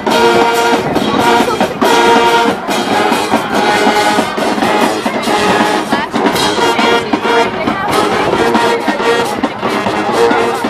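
High school marching band playing a loud up-tempo tune: massed brass (trumpets, trombones, sousaphones) over a steady pounding of drums.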